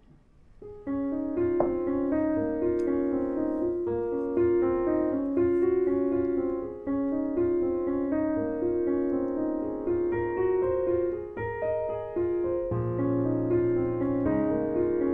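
Background piano music, a gentle melody of soft repeated notes over lower held notes, starting about a second in.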